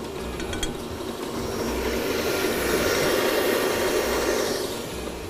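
Electric stand mixer running steadily, whisking egg whites into a meringue foam; the whir grows louder toward the middle and eases back near the end.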